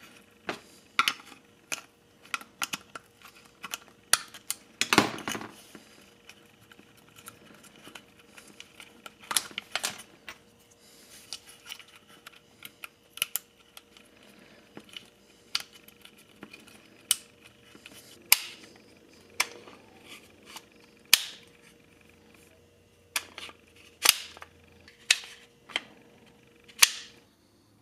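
Sig P322 pistol's trigger being pressed and released over and over, dry-firing with sharp clicks spaced irregularly, roughly one every second or two. A longer stretch of handling noise comes about five seconds in.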